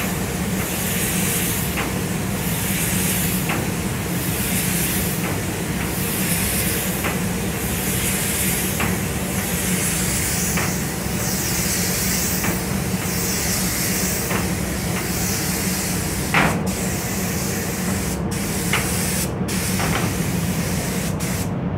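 Gravity-feed compressed-air paint spray gun spraying paint, a steady hiss that swells about once a second as each pass is made, over a steady low hum. A few sharp knocks come in the last few seconds.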